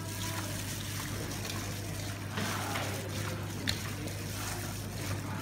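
Gloved hands kneading marinated pork chunks in a stainless-steel bowl, with wet squishing and a few faint slaps, over a steady low hum. The seasoning is being worked into the meat until the sugar and MSG dissolve.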